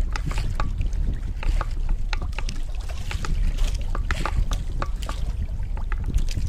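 Wind rumbling on the microphone and sea water lapping against a small outrigger boat, with many scattered small clicks and taps.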